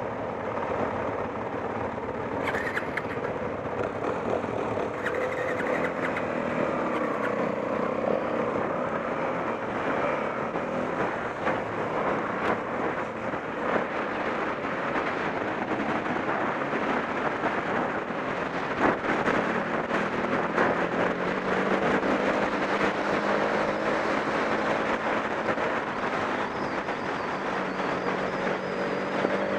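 Off-road motorcycle engine running and changing pitch as it is ridden, over a steady rush of noise, with a few sharp knocks, about two seconds in and again past the middle.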